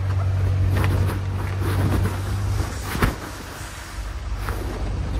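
A steady low mechanical hum, louder in the first three seconds, with a few sharp knocks and rustles as items are shifted around in a dumpster. The loudest knock is about three seconds in.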